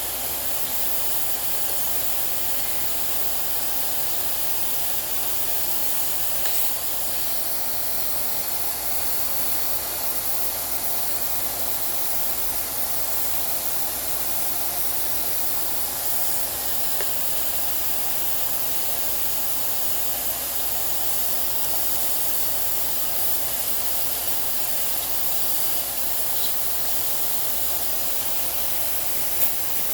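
Steady, even hiss of rushing air under a faint hum, unchanging throughout, with two short clicks near the end.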